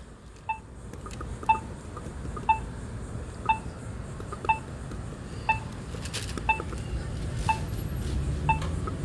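Accessible pedestrian signal push button's locator tone: a short, two-pitched beep repeating steadily about once a second.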